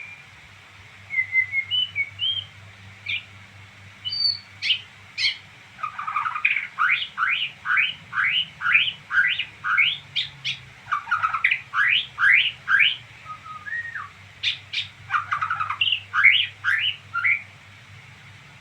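A songbird chirping. A few scattered short chirps come first, then two long runs of rapid rising notes, about three a second: one from about six seconds in, and another near the end.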